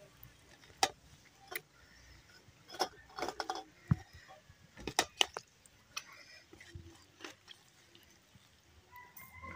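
Scattered light clicks, taps and scrapes of fingers and rice against a stainless steel plate and bowl as food is mixed and scooped by hand, with a quick cluster about three seconds in and another about five seconds in.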